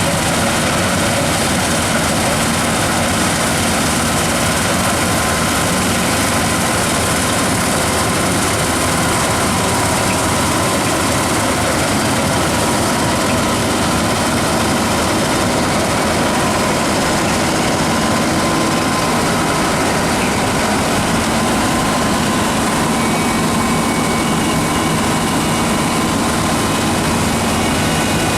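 New Holland combine harvester running steadily while threshing wheat: a dense, even machine noise with faint steady whining tones.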